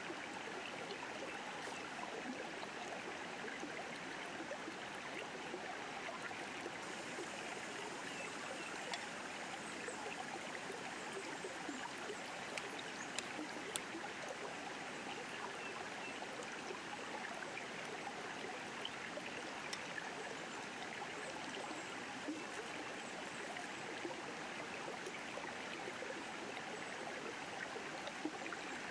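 River water flowing steadily, a continuous rushing stream, with a few faint clicks scattered through it.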